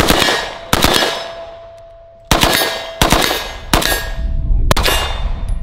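AK-pattern rifle firing six unsuppressed shots at an uneven pace over about five seconds. Steel targets give a lingering metallic ring between the shots.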